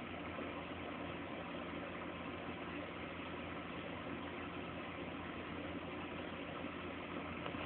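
Steady low hum with hiss and no distinct events, like a running appliance or the phone's own recording noise.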